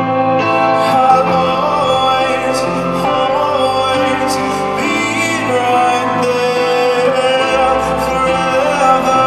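A song with a singer over held instrumental notes, playing continuously.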